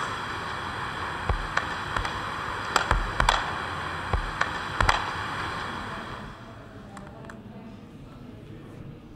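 Electronic hiss with scattered sharp clicks from a sound installation's grid of small cube loudspeakers; the hiss fades out about six seconds in.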